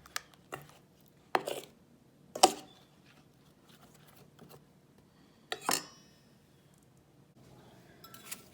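Kitchen cookware and utensils knocking and clinking: a few separate sharp strikes, the loudest about two and a half seconds in, and one near six seconds that rings briefly like metal or glass.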